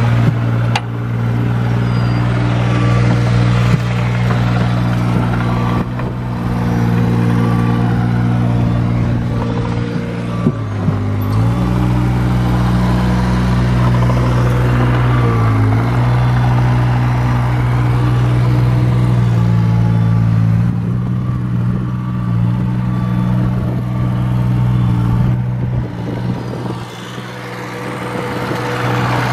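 Skid steer loader's engine running steadily, its pitch sagging briefly about ten seconds in and again about fifteen seconds in, then recovering.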